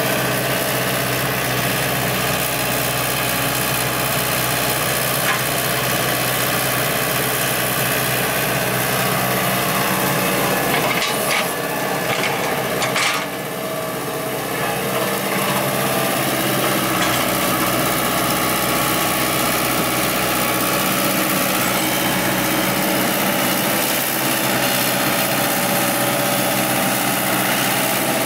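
Komatsu hydraulic excavator's diesel engine running steadily, with a few knocks and a brief dip in level about eleven to thirteen seconds in.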